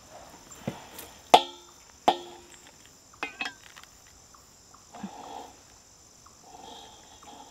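Metal clicks and clinks from a propane hose regulator fitting being handled and tried against a small green one-pound propane cylinder, the wrong connector for that tank. Three sharp clicks come in the first two seconds, the third ringing briefly, then lighter taps and soft rubbing. Insects chirr steadily in the background.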